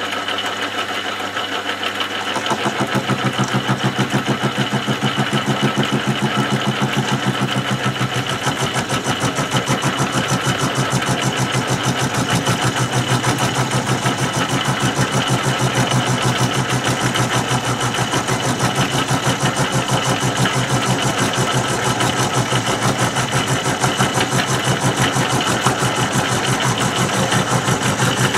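Milling machine cutter running at about 400 rpm and cutting metal, with a fast, even chatter as it bites. The sound gets louder about two and a half seconds in as the cut takes hold, then stays steady.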